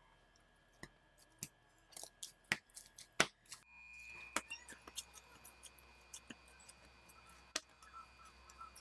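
Hands kneading oiled bread dough on a tabletop: irregular sticky clicks, small slaps and knocks as the dough is pressed and turned, a few louder ones between two and four seconds in.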